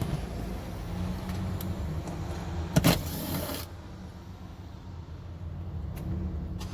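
A sharp click about three seconds in, followed by a short rasp, over a steady low rumble: a rear door trim piece on a car being worked loose by hand.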